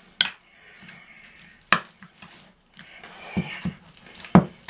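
Cottage cheese and raw egg being squeezed and mashed by hand in a small plate: soft wet squelching, broken by a few sharp knocks on the plate, the loudest about a second and a half in and near the end.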